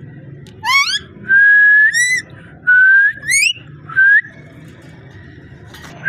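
Ringneck parrot whistling: a sharp upward-sweeping call, then two long held whistles that each slide up at the end, and a short whistle about four seconds in.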